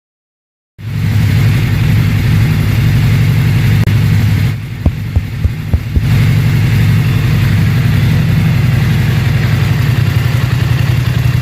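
Motorcycle engine idling with a steady, rhythmic low pulse, cutting in suddenly about a second in. About halfway through it drops in level briefly while four sharp clicks sound, then comes back at full level.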